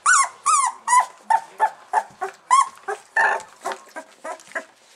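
Young Border Collie puppies whining and yelping, a quick run of short high calls at about three a second that stops shortly before the end.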